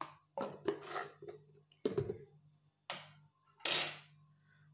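Kitchen handling noises: a few light clicks and knocks, then one louder brief scrape or rustle near the end, over a faint steady low hum.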